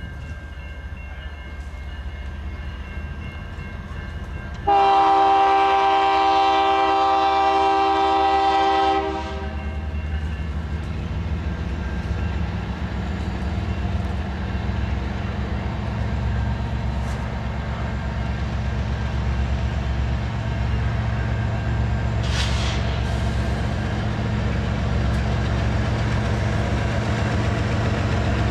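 A BNSF diesel freight locomotive sounds a multi-chime air horn in one blast of about four seconds, starting about five seconds in. Before and after the horn, the locomotive's engine and the train's wheels rumble steadily on the rails.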